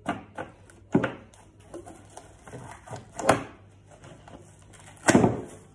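Cling film being handled over a glass bowl: a series of sharp crinkles and rustles as the film is stretched and pressed down around the rim, the loudest and longest about five seconds in.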